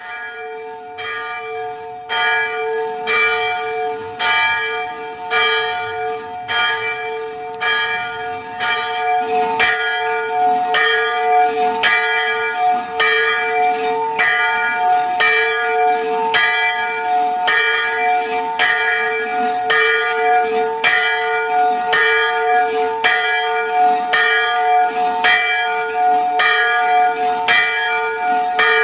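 A church bell ringing with a steady, even stroke, about three strikes every two seconds, its hum carrying on between strikes. It swells in loudness over the first several seconds, then rings on at an even level.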